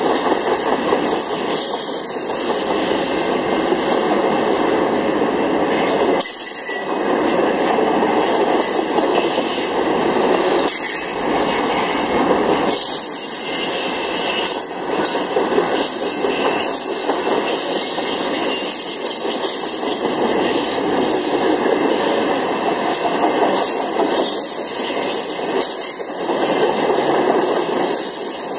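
Loaded railroad flatcars of a freight train rolling steadily past, with wheels rumbling and rattling on the rails. Short high-pitched wheel squeals come and go throughout.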